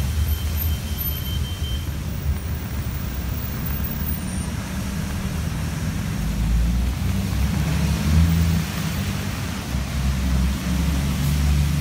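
City street traffic on wet roads: cars passing with a low engine rumble and tyre hiss, swelling in the second half.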